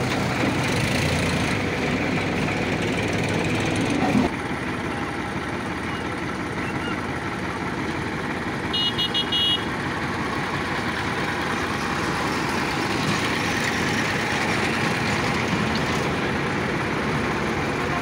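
Diesel tractor engines running in a steady drone, which changes abruptly about four seconds in. About halfway through comes a quick run of several short horn beeps.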